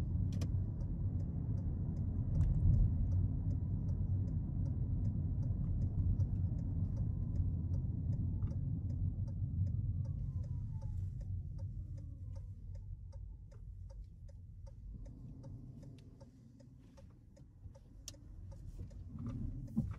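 A car's turn-signal indicator ticking steadily inside the cabin, over the low rumble of engine and road noise. The rumble dies away over the second half as the car slows to a stop.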